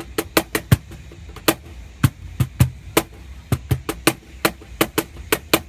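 A cajon played by hand in a quick groove: deep bass tones alternating with sharp, buzzy snare tones from the wires inside, with soft left-hand ghost notes between the loud strokes.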